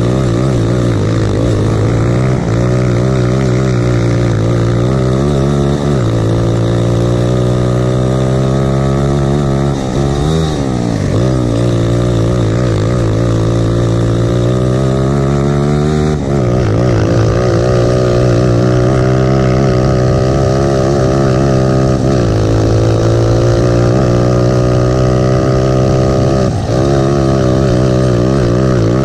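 Lifan-engined grass kart's single-cylinder four-stroke engine running hard, heard from the driver's seat. The revs drop briefly about five times, for the corners, and climb back each time.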